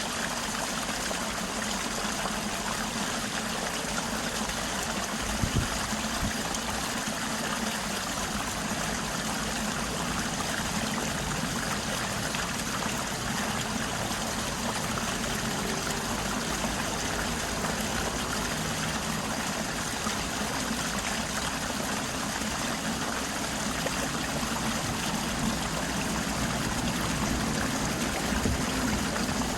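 Stream water flowing and trickling steadily, with a brief low bump about five seconds in.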